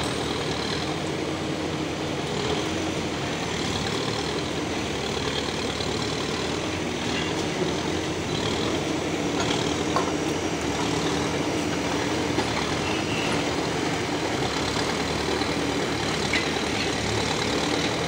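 Backhoe loader's diesel engine running steadily, with a few faint knocks.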